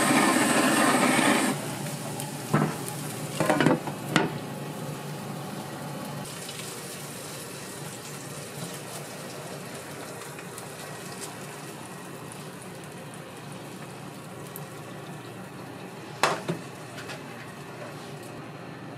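Kitchen cooking sounds: a loud steady rushing noise cuts off about a second and a half in, leaving a steady low frying sizzle. Metal utensils clink against pans a few times, in a cluster about four seconds in and once more near the end.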